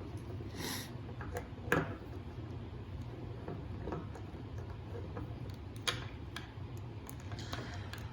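A few light clicks and taps of small plastic pieces being handled, a 30-year-old G.I. Joe action figure and its bandolier, sharpest about two seconds in and again about six seconds in, over a low steady hum.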